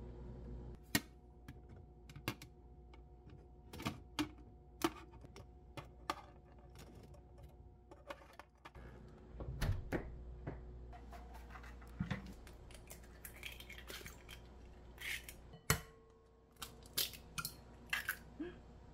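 Kitchen handling sounds: scattered sharp clicks and knocks as the refrigerator is opened and its containers are handled, over a low steady hum. Several quick sharp taps near the end come from eggs being cracked against a glass bowl.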